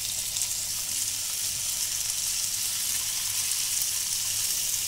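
Melted butter sizzling steadily in a grill pan as marinated paneer tikka skewers fry in it.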